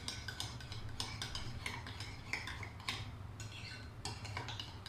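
Metal spoon stirring yogurt in a ceramic bowl, clinking against the bowl's sides in quick, irregular taps.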